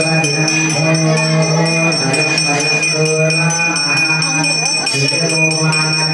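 Melodic devotional chanting over a steady low drone, with a small puja hand bell ringing over it.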